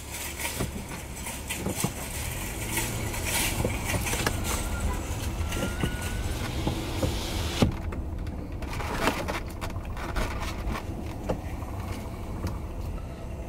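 Car driving, with steady engine and road rumble heard from inside the cabin; a higher hiss over it drops away abruptly a little over halfway through.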